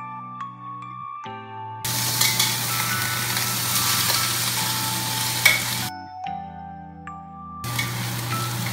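White shrimp sizzling as they fry in hot oil in a wok, stirred with a spatula. The loud sizzle starts about two seconds in, drops out briefly past the middle, then returns near the end.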